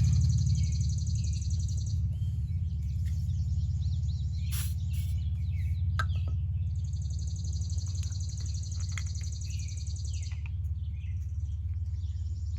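Pool pump motor running with a steady low hum. Birds chirp now and then over it, and a high buzzing hiss starts and stops in stretches of a few seconds.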